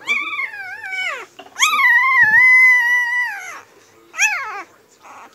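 Newborn Siberian husky puppy crying in three high-pitched wails. The first falls in pitch, the second is long and the loudest, held steady before it drops, and a short third cry comes near the end.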